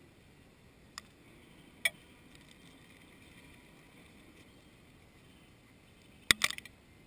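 Rock pigeons flapping and landing close by on stone paving: two sharp taps early on, then a loud cluster of several quick wing claps and taps a little after six seconds, over a faint steady background hum.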